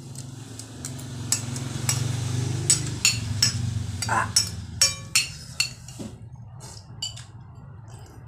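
Metal spoon and fork clinking and scraping against a glass bowl as the last noodles are scooped up and eaten quickly, in a string of sharp clinks, some with a short glassy ring.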